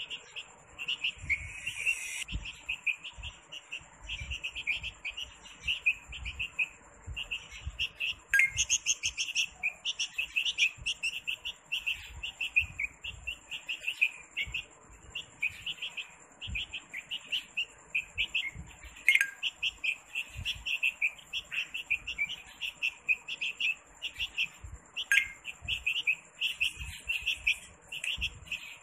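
Baby bulbul chirping in quick, repeated short calls, with a few sharp clicks in between.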